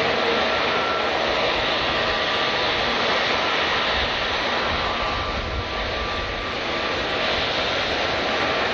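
Jet airliner engines running: a steady rushing noise with a faint whine through it, easing slightly for a moment about halfway through.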